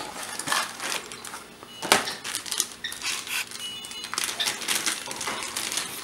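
A small cardboard accessory box being opened and clear plastic bags of small metal screws handled: crinkling plastic with scattered clicks and clinks of the screws, one sharper click about two seconds in.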